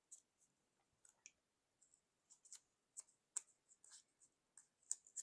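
Faint, scattered clicks and light taps of hands handling the razor's small packaging and parts. The ticks come sparsely at first and then more often toward the end.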